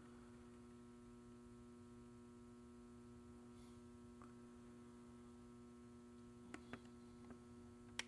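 Near silence with a faint, steady electrical hum and a few light clicks near the end.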